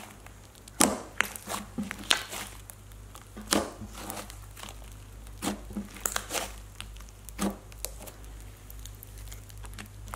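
Thick, soap-based Grape Ape Crackle slime being poked, pressed and stretched by hand: irregular sharp pops and clicks, roughly one every second, over a faint crinkly crackle and soft squishing.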